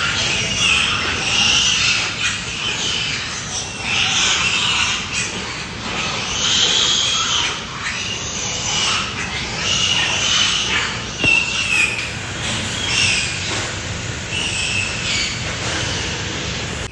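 Piglets squealing again and again, short shrill squeals coming every second or two.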